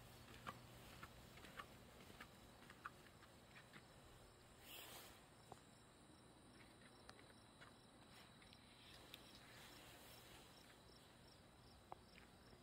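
Near silence: faint footsteps on a concrete walkway, about two steps a second in the first few seconds and sparser after, with a brief soft rush about five seconds in, over a faint steady high tone.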